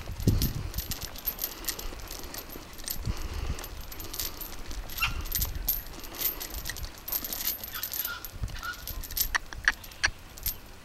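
Lengths of metal chain hanging from a horse's harness jingling and clinking irregularly as the horse walks, with a few low thumps.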